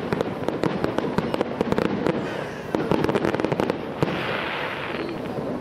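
Fireworks going off: a dense, rapid crackle of many small pops and bangs. About four seconds in there is a single crack and then a short hiss, and the sound thins out near the end.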